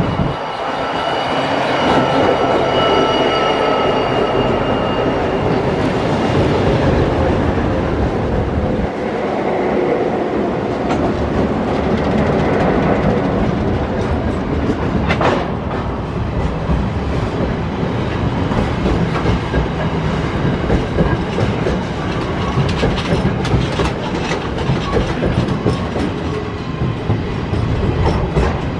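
Diesel container freight train passing close. The locomotives' engines carry a steady high whine that fades over the first few seconds. Then the container wagons roll by with a continuous rumble and wheel clatter over the rails, and one sharp click about halfway through.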